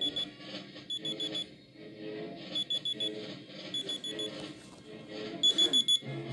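Tablet speaker playing an alarm tone: groups of four quick, high beeps repeating about every second or so over a soft melodic backing, the last group near the end the loudest.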